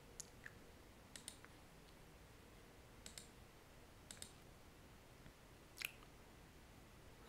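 Faint computer mouse clicks, about five of them, several heard as a quick double tick of press and release, over near silence.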